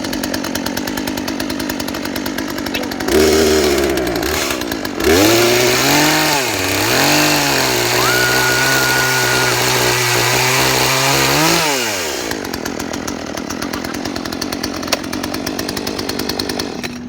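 Chainsaw running at idle, then revved hard about three seconds in. Its pitch swings down and back up twice, holds at full speed for several seconds, and drops back to idle about twelve seconds in.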